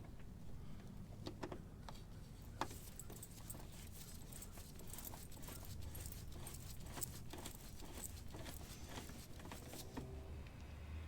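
Faint, scattered clicks and small rattles of a motorcycle turn-signal assembly and its fasteners being handled and fitted by hand, busiest through the middle, over a low steady hum.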